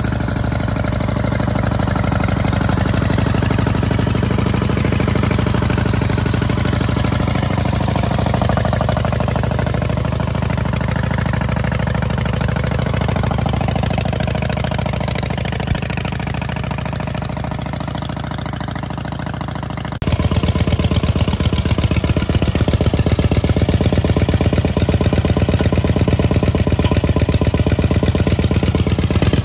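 1950 Harley-Davidson FL Panhead's V-twin engine idling steadily. About twenty seconds in the sound becomes abruptly louder and closer.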